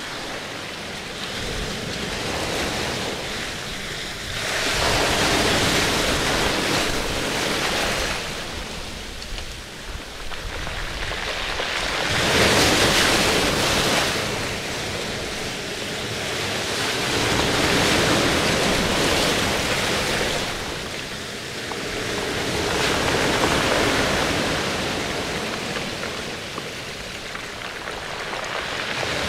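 Ocean surf: waves swelling and washing back in slow surges about every five or six seconds.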